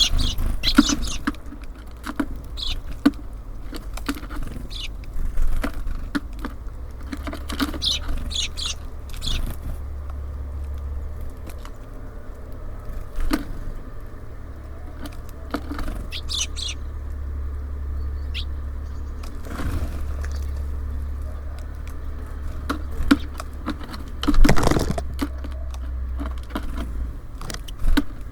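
Birds at a feeder: scattered sharp taps and scrabbling as they peck and land, with short high chirps, over a steady low rumble. One louder flurry comes late on.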